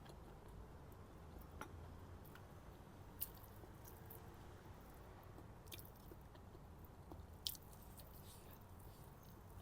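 Faint chewing of a mouthful of chicken biryani, with a few sharp little mouth clicks.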